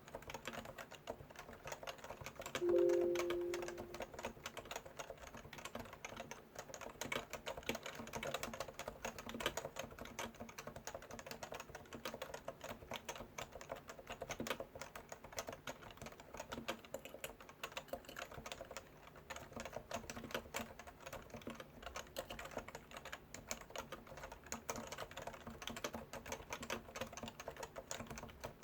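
Continuous, fast typing on a Leopold FC980C keyboard with Topre electrostatic capacitive switches: a dense, unbroken run of soft keystrokes. About three seconds in, a brief low tone sounds over the typing and is the loudest moment.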